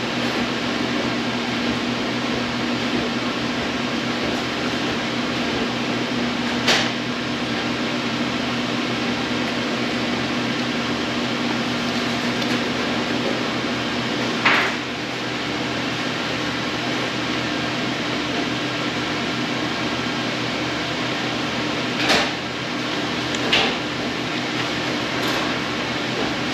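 Steady ventilation hum, like an air conditioner or fan, with a low drone in a small room. Four short knocks break in, two of them close together near the end.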